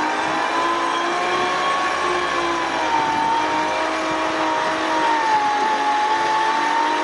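Engine running steadily while the Toyota's front winch reels in cable, pulling a small IH tractor. A pitched whine near the top of the sound drifts slightly up and down.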